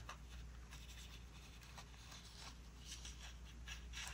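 Faint scratching of a paper sticker being cut out, with a few light ticks.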